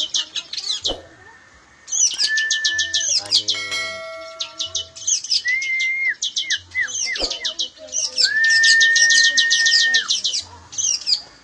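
Caged bar-winged prinia and long-tailed shrike singing together: fast runs of high chirps repeated over and over, broken by long, steady whistled notes. A brief ringing tone sounds about three and a half seconds in.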